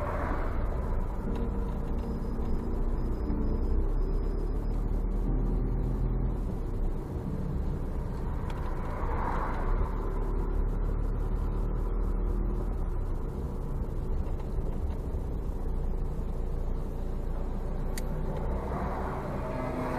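Car driving along a town road: a steady low engine and tyre rumble, with a brief rush of passing traffic swelling up three times, at the start, about halfway through and near the end.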